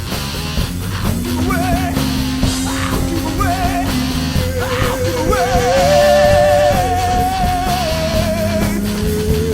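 Heavy rock music: distorted guitars, bass and drums, with a lead guitar holding long notes with vibrato.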